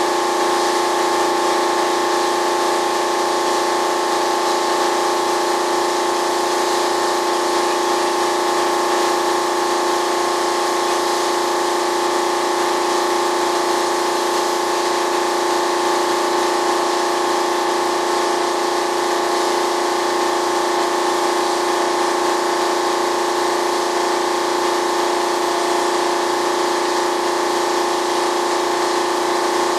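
Paint spray gun hissing steadily, over a steady machine hum made of several fixed tones, with no breaks.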